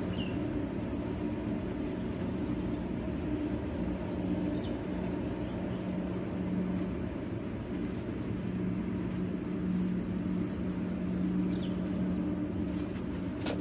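Steady low motor hum from an unseen engine or machine, swelling and easing slightly, with a few faint short high chirps and one sharp click near the end.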